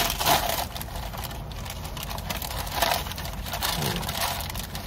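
Paper burger wrapper crinkling as it is pulled open around a cheeseburger: a loud crinkle at the start, another about three seconds in, and softer rustling between.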